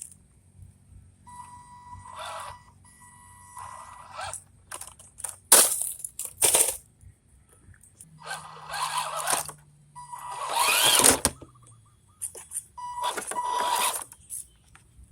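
Scale RC crawler driving over rough ground in short stop-start runs: its small electric motor and gears whine, rising in pitch once near the middle, while the tyres crunch and scrape over dirt and gravel, with a few sharp knocks.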